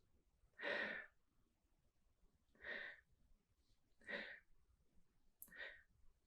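A person sniffing at a glass of beer: four short, breathy sniffs about a second and a half apart.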